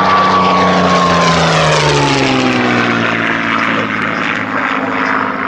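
A formation of Spitfire and Hurricane fighters flying past, their piston engines droning loudly. The pitch drops as the aircraft pass, between about one and three seconds in.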